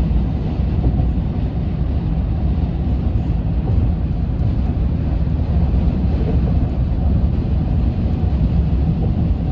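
Steady low road rumble of tyres and wind heard from inside a car cabin cruising at highway speed.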